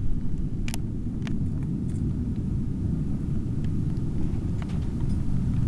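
Wind buffeting the microphone: a steady, dull low rumble, with a few faint ticks over it.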